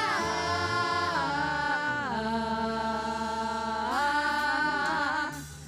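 Women's vocal group singing a Portuguese gospel hymn, holding long notes that slide between pitches. The sound drops away briefly near the end before the next phrase.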